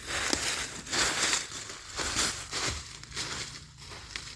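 Irregular rustling and crunching, loudest in the first three seconds and then fading.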